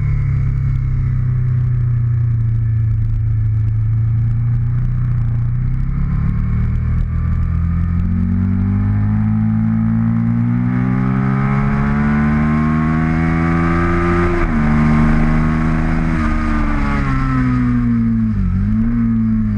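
Aprilia Tuono 1000 R Factory's V-twin engine at racing speed, heard from the onboard camera: the pitch holds low at first, then climbs steadily from about six seconds in, drops sharply at a gear change about fourteen seconds in, eases down, and dips briefly near the end before rising again.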